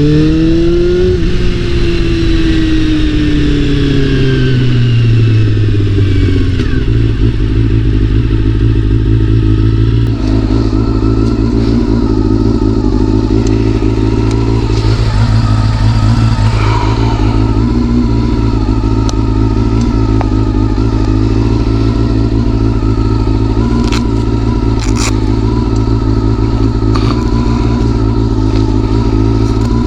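Honda CBR400RR's inline-four engine running. Its pitch falls over the first several seconds as the revs drop, then holds steady.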